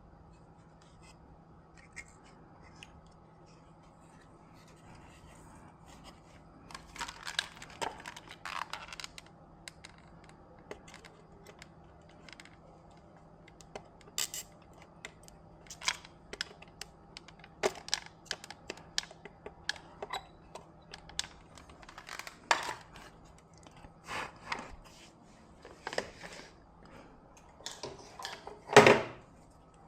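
Hands handling tools and parts on a repair bench: scattered clicks, scrapes and rustles, the loudest a knock near the end, over a faint steady hum.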